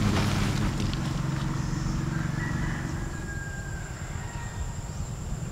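A steady low engine hum, with rice plants rustling in the first second as they are pushed through.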